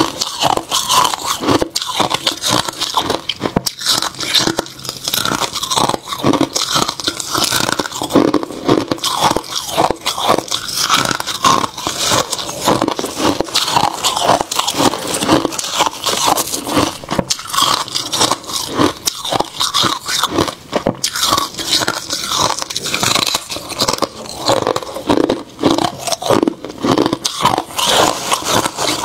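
Freezer frost being bitten and chewed close to the microphone: a dense, unbroken run of rapid icy crunches.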